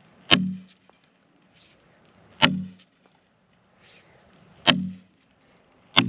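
Sledgehammer driving steel splitting wedges into a dead white oak log: four heavy ringing blows about two seconds apart, the last as it ends, as the log cracks open along the wedged seam.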